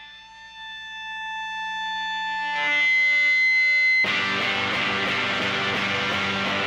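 Distorted electric guitar holding a sustained chord that swells steadily louder, then about four seconds in the full rock band comes in at once with drums and heavy distorted guitar.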